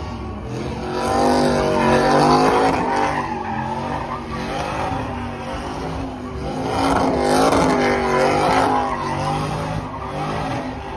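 Car engine revving hard with tyres spinning and squealing through donuts. It swells louder twice, about a second in and again around seven seconds, while the engine pitch wavers up and down.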